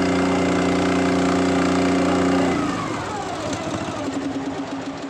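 Motorboat engine running steadily at speed, then throttled back about two and a half seconds in, its pitch falling as it settles to a quieter, lower running sound.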